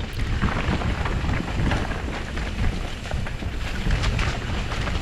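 Wind buffeting the microphone of a rider-worn camera as a mountain bike runs fast down a rocky dirt trail, with tyre rumble and scattered clicks and rattles from the bike.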